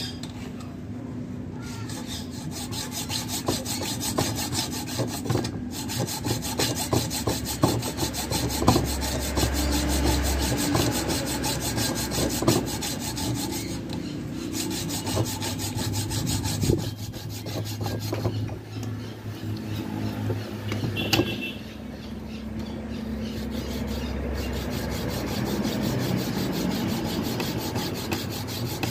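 Hand hacksaw cutting into the steel shell of a hermetic refrigerator compressor. It makes a steady back-and-forth rasping stroke after stroke, with a couple of brief breaks about two-thirds of the way through.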